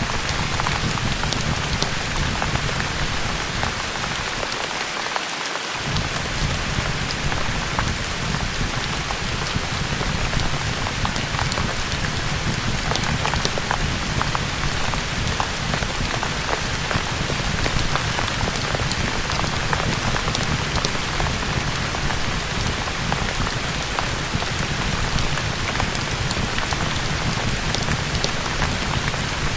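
Steady rain, with scattered small crackles of a wood fire in a fireplace.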